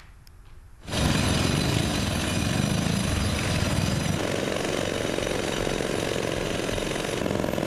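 Loud, steady noise of road-repair machinery running, starting abruptly about a second in.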